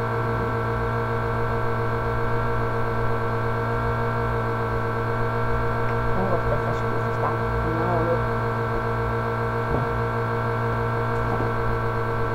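Electric fan running with a loud, steady hum made of several fixed tones that hold without change.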